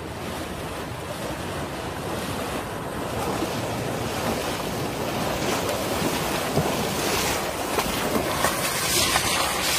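Muddy floodwater rushing and splashing as a group of elephants wades through it, with wind buffeting the microphone; the water noise grows louder.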